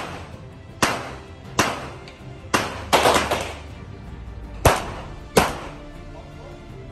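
Handgun shots, about seven, fired at an irregular pace, each a sharp crack with a short echo, two of them close together about three seconds in. Background music plays underneath.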